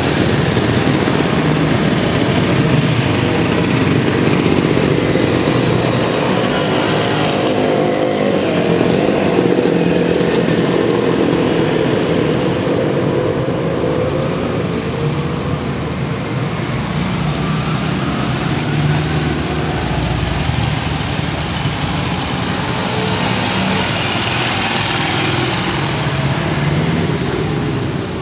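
A line of motorcycles riding past one after another at low speed, engines running steadily, the pitch rising and falling as each bike passes close by.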